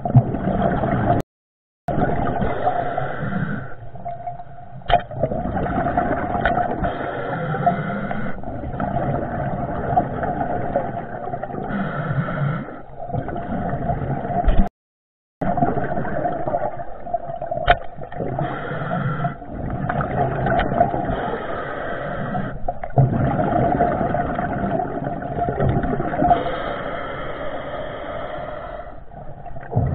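Muffled underwater sound through a camera's waterproof housing: water rushing and the housing knocking as the diver swims, over a steady hum. The sound cuts out completely twice, briefly.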